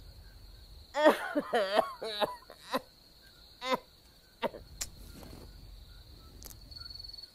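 An elderly woman coughing: a rapid hacking run about a second in, then several single coughs spaced out. Crickets chirr steadily underneath.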